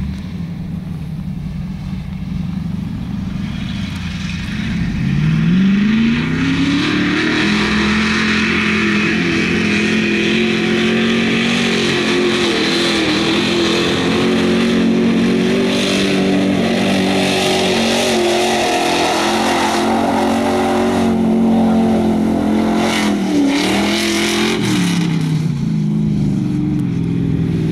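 Ford 4x4 mud truck's engine revving up about four seconds in and held at high revs as the truck charges through standing water, with a steady rush of spray over it. Near the end the revs drop briefly, then pick up again.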